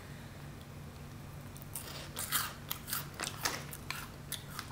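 Crunching and chewing a crispy squid-flavoured chip snack: irregular crisp crunches that start about a second and a half in.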